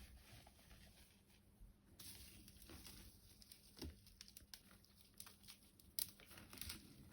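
Cat pawing at and tearing a homemade toy: faint scattered rustling, crinkling and light taps, with a few sharper clicks in the second half.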